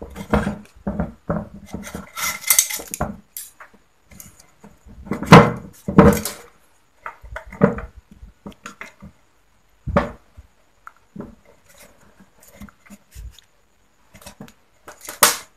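Irregular metallic clicks, taps and short scrapes of a screwdriver and gloved hands working on a Yamaha Autolube two-stroke oil pump in its cover, with a sharp knock about five seconds in, the loudest.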